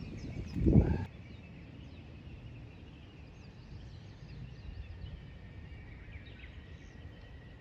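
Faint outdoor ambience: small birds chirping over a low steady rumble, with a thin steady high tone. A brief louder low rumble comes just before a second in.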